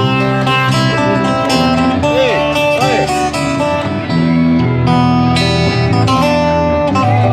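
Instrumental break of a sertanejo song: a plucked guitar lead with a few bent notes over a steady bass line, without singing.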